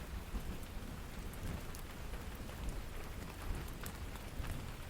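Steady rain falling on a small cabin, heard from inside, with scattered individual drops ticking over an even hiss and a low rumble underneath.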